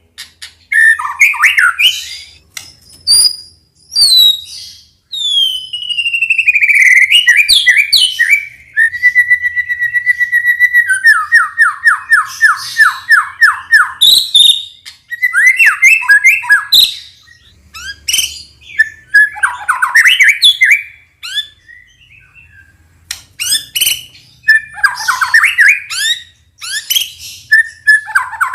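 White-rumped shama (murai batu) singing a loud, varied song of sweeping whistles and chirps with mimicked phrases. About a third of the way in, one held note turns into a fast run of repeated notes, and a few sharp clicks fall between the phrases.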